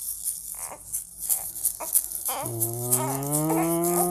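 A baby's rattle toy shaken for the first couple of seconds, then a long, low, drawn-out 'moo'-like voice starting about halfway through and rising slowly in pitch.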